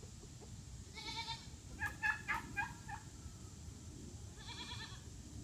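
Goats bleating in a farm yard: a quavering bleat about a second in and another near the end. Between them, around two seconds in, comes a quick, louder run of short calls from the poultry in the pen.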